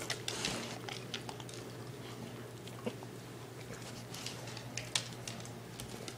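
Siberian husky crunching and chewing a homemade liver dog cookie, with sharp crunches clustered near the start and again about four to five seconds in.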